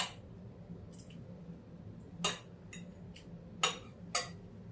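Metal knife and fork clinking and scraping against a plate while food is cut, about half a dozen short, sharp clinks at uneven intervals.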